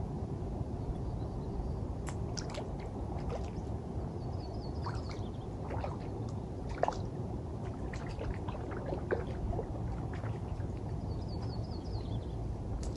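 Irregular splashing and gurgling of lake water at the shoreline as a hooked trout is landed from shore, over a steady low rumble. A small bird sings a short descending trill twice, about five seconds in and near the end.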